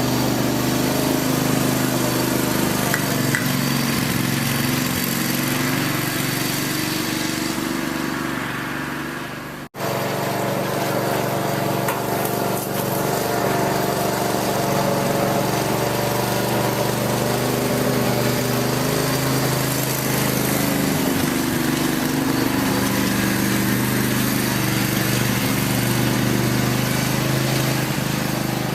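Craftsman lawn tractor's small engine running steadily, warming up after being brought back to life. The sound cuts out for an instant about ten seconds in, then runs on unchanged.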